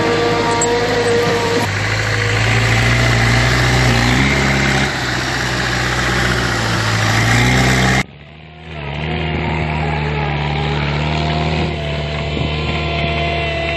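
Wheel loader's diesel engine running under load, its pitch rising and falling as it works the snow. About eight seconds in, the sound cuts abruptly to a steadier engine running.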